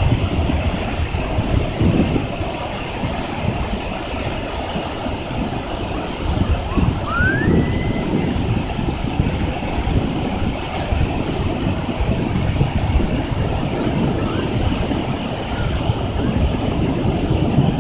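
Strong wind blowing in gusts, buffeting the microphone with a heavy low rumble. About seven seconds in, a short rising whistle cuts through briefly.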